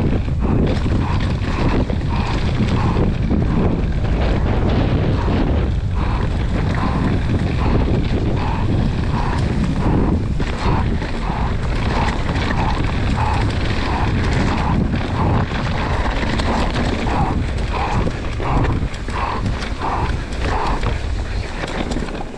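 Downhill mountain bike being ridden fast down a trail: steady wind rush on the GoPro microphone mixed with tyre and bike rattle, with a short repeating mid-pitched tone about twice a second through most of it.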